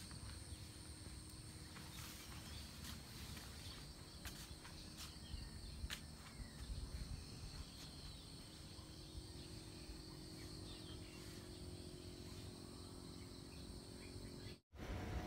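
Faint outdoor ambience. Wind buffets the microphone, under a steady high trill of insects at two pitches and a few soft clicks. The sound cuts out briefly near the end.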